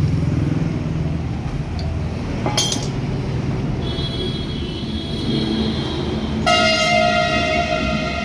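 Steady low rumble of traffic or a running engine, with a brief click about two and a half seconds in. Near the end a loud, steady horn-like tone sounds and holds.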